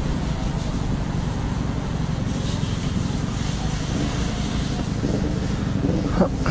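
Vehicle on the move: a steady low engine and road rumble with wind noise on the microphone. A brief, louder rising sound comes near the end.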